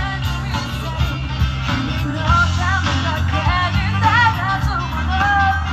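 Rock song: a voice singing over electric guitar and bass guitar.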